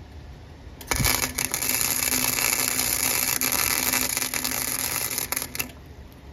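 Flux-core wire-feed welder arc crackling steadily while a repair bead is run on the chipper shredder's broken metal branch chute, with a steady low hum under it. It starts about a second in, runs for about five seconds and cuts off abruptly.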